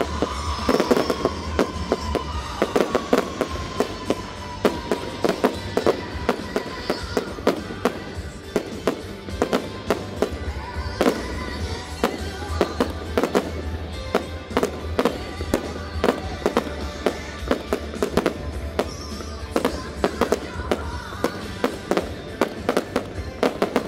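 A fireworks display: aerial shells and cakes fire and burst overhead in dense, rapid bangs and cracks, several a second, with music playing underneath.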